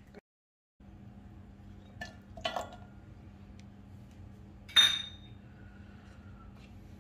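Garlic cloves and a small glass bowl clinking against a stainless-steel mixer-grinder jar: two light clinks about two seconds in, then one sharp clink with a short metallic ring near five seconds.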